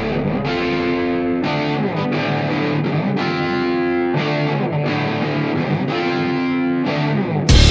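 Overdriven solid-body electric guitar playing sustained chords alone, moving to a new chord about every second. Just before the end the drums and full band come in loudly.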